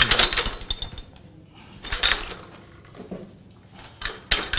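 Small Boston tabletop platen press worked by its hand lever, its metal linkage rattling and clattering as the inked rollers run over the disc and the platen closes on the paper to pull a test print. Three short bursts of clatter come at the start, about two seconds in and near the end.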